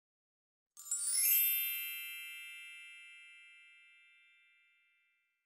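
A sparkling chime sound effect: a quick rising shimmer of high bell-like tones about a second in, then a ringing chord that fades away over about three seconds.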